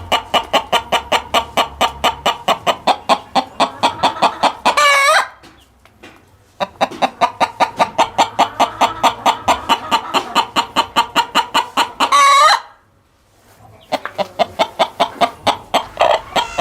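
A chicken cackling: fast runs of short clucks, about five a second, each of the first two runs ending in a longer drawn-out squawk, followed by a third run of clucks.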